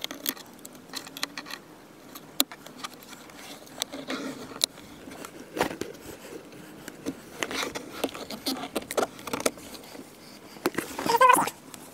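Hand-working noises of fitting adhesive carbon fiber trim pieces onto a car's plastic door panel: scattered small clicks, taps and scrapes, with a short wavering squeak near the end.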